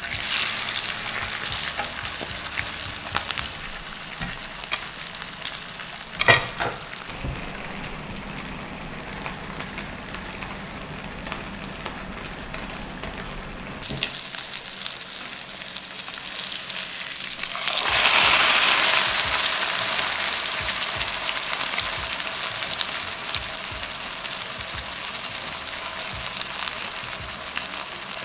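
Mackerel steak sizzling as it shallow-fries in hot oil in a pan, a steady hiss with a sharp knock about six seconds in. The sizzle grows much louder at about eighteen seconds in and stays loud.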